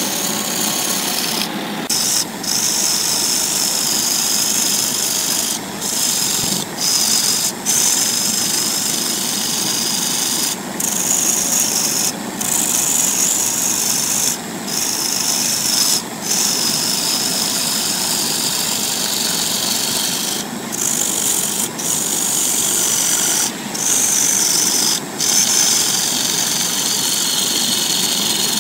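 Wood lathe spinning a segmented wooden vase blank while a hand-held turning tool cuts into it: a steady scraping hiss of the tool peeling off shavings over the lathe's running. The cutting breaks off briefly about a dozen times.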